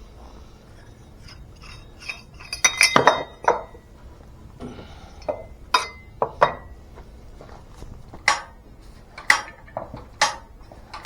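Irregular metallic clinks and clanks of hand tools and metal parts knocking together, a dozen or so sharp strikes, some with a short ring.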